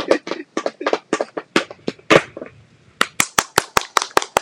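Tap shoes striking a small wooden tap board: a run of sharp taps, uneven at first, then an even quick series of about six taps a second from about three seconds in.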